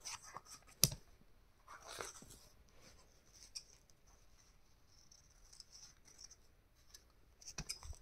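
Faint paper handling with scattered clicks and taps: one sharp click about a second in, a short rustle of paper around two seconds in, and a quick cluster of clicks near the end.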